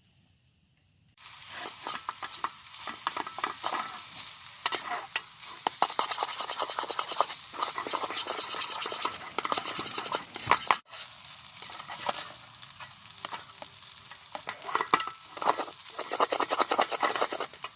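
Food frying in hot oil in a small pan, sizzling with dense crackling, with a utensil stirring and scraping in the pan. It starts about a second in and drops out for an instant a little past the middle.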